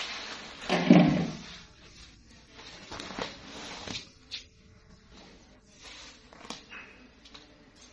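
Woven plastic floor mat rustling and flapping as it is shaken out and laid down on a concrete floor, with a few scrapes and slaps. The loudest rustle comes about a second in.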